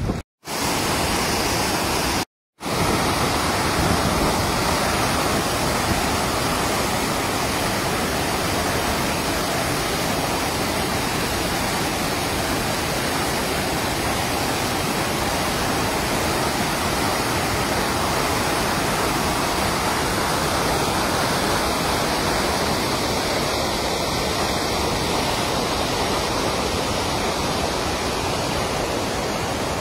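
Floodwater rushing and churning through an open earth channel: a steady, unbroken sound of turbulent water. It cuts out briefly twice in the first few seconds.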